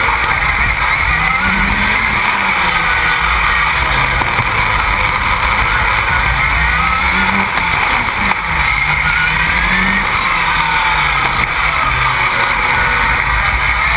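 Onboard sound of a rallycross buggy's Škoda 1.8-litre turbocharged four-cylinder engine at racing speed, its revs rising and falling repeatedly as it is driven through the corners.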